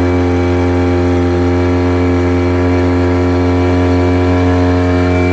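A 2006 Tohatsu 9.8 hp four-stroke outboard idling steadily at one even pitch. It is being test-run to check the cooling-water flow after a new water-pump impeller was fitted.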